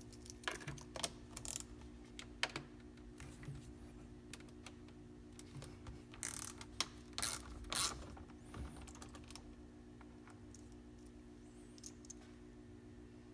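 Scattered, irregular clicks and taps of a hand wrench and socket working out the 8 mm bolt that holds the steering-wheel airbag, with two brief rustling scrapes about six and eight seconds in. A faint steady hum lies underneath.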